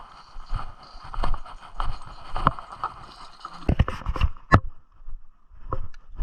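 Irregular knocks and thumps over a steady rushing noise, with the loudest knocks clustered a little past halfway.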